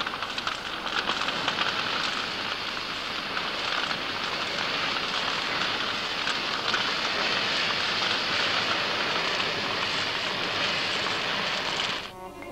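A large fire burning: a steady, dense crackling hiss that cuts off suddenly near the end.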